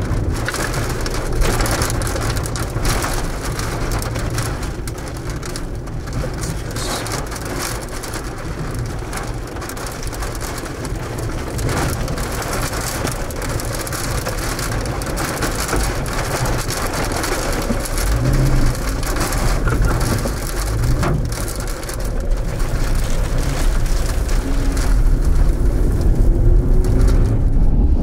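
Rain and wind beating on a storm chaser's vehicle, with many sharp drop hits over a low rumble that grows louder in the last third.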